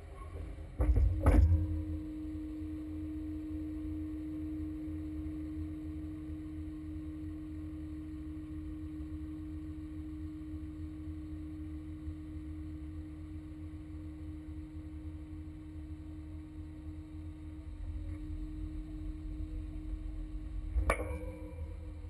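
A vehicle engine running steadily, a low rumble with a constant hum. Sharp knocks about a second in and again near the end.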